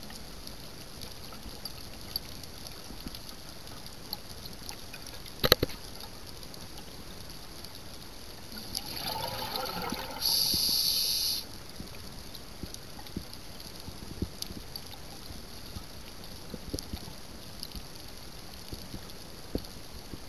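Underwater ambience picked up through a sealed camera housing: a steady hiss with scattered faint clicks and one sharp click. About halfway through comes a swell of bubbling and gurgling, then a loud hiss lasting about a second that stops abruptly, the sound of a scuba diver breathing out and in through a regulator.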